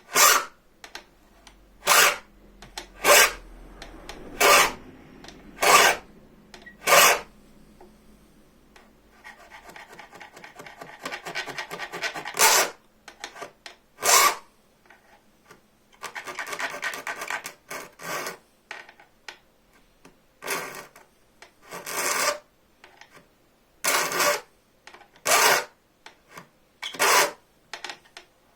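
Hand file cutting teeth into a bow-saw blade: short rasping strokes, about one every second and a half, with a couple of stretches of quieter, rapid scraping in between.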